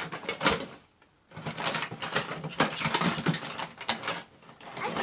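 Toys being rummaged through by hand, with a couple of sharp knocks in the first second, then a second or so later a run of rustling and irregular clatter as they are moved about.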